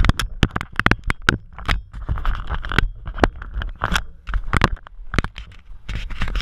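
Handling noise from a GoPro camera strapped to a bicycle pedal being adjusted by hand: irregular sharp clicks and knocks with rustling scrapes of fingers on the housing and mount.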